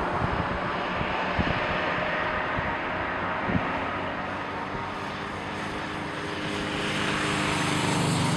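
Aircraft engine noise that is steady and dense, easing off in the middle and swelling again near the end. A few soft knocks come within the first four seconds.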